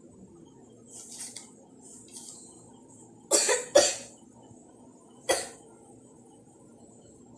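A person coughing several times: a couple of faint coughs, then two loud coughs in quick succession and one more a moment later.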